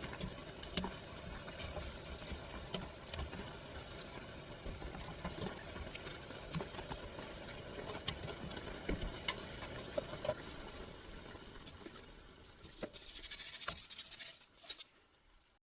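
Shiitake mushrooms stir-frying in a frying pan: a steady sizzle with scattered sharp clicks, growing louder and hissier near the end before cutting off.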